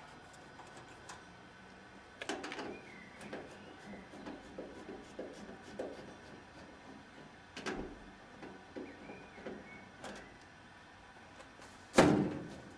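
Scattered knocks and clicks from a screwdriver working on a washing machine's sheet-metal top, then a loud clatter near the end as the metal lid is slid off the machine.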